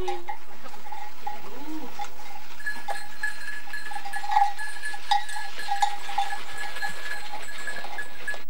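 A livestock bell clinking over and over at an uneven pace, as from a bell on a goat's or cow's collar as the animal moves, with a faint animal call about two seconds in.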